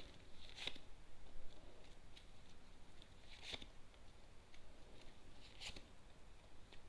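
Tarot cards being handled, faint: a few soft card rustles or snaps, two to three seconds apart.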